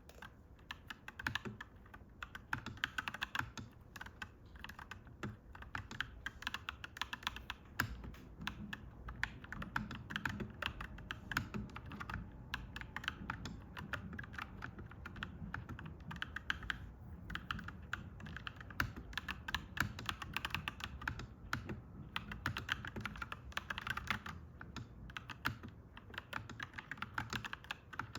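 Typing on a clacky mechanical keyboard: a dense, continuous run of key clacks with a few brief pauses.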